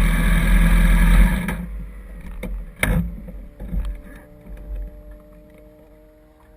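Wind and road rumble of a ride, stopping abruptly about a second and a half in. A few scattered knocks and clunks follow, the loudest near three seconds in, then a faint steady hum.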